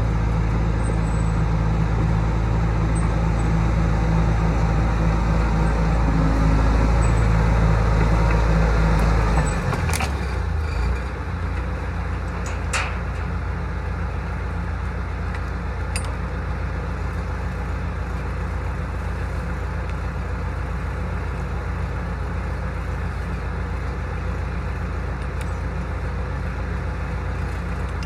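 Bulldozer's diesel engine running hard for about ten seconds, then throttled back to a lower steady running, with a few light clanks.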